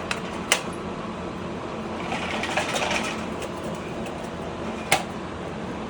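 Sharp clicks and a brief rustle from hands handling wires and small parts, over a steady background hum. The clicks come just after the start, about half a second in and near the end; the rustle comes about two to three seconds in.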